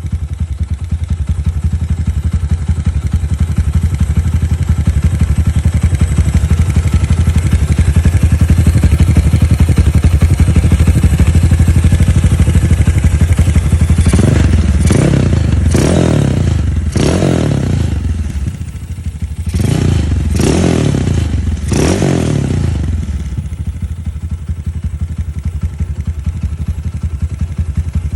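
Honda Mega Pro single-cylinder motorcycle engine running through an aftermarket KTM-copy exhaust, idling steadily, then revved in about seven quick throttle blips, each dropping back, before settling to idle again.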